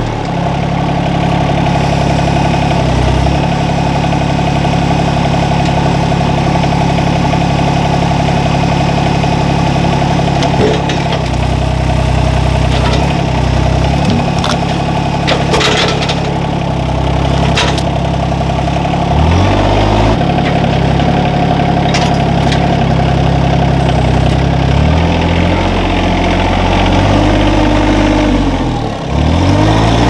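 Compact tractor's diesel engine running under loader work, its pitch shifting up and down several times as the hydraulics lift with a log grapple. A few sharp knocks partway through as the grapple grips and shifts cedar logs.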